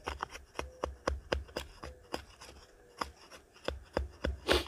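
Buck Comprede axe blade scraping and shaving strips of red cedar bark off a stick to make tinder: a quick, irregular run of short rasping scrapes and clicks.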